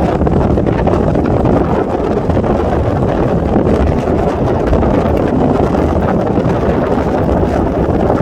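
Wind buffeting the microphone, a steady heavy rumble with no breaks.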